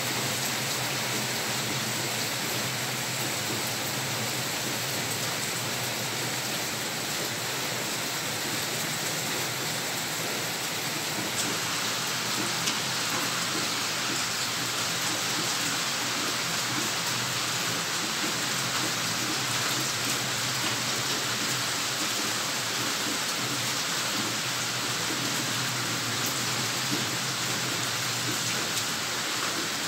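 Heavy rain falling steadily, a continuous even hiss that grows a little stronger about a third of the way through.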